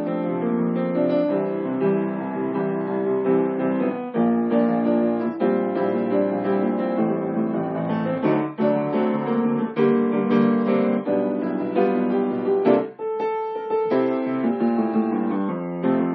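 Solo piano playing a continuous run of chords and melody, thinning briefly to a single held note about 13 seconds in before the chords resume.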